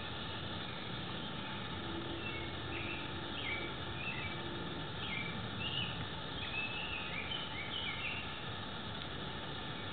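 Outdoor ambience: a steady background hiss with short bird chirps on and off, coming more often past the middle.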